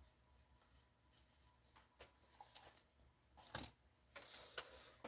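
Near silence: quiet room tone with a few faint clicks and rustles, the loudest a short click about three and a half seconds in.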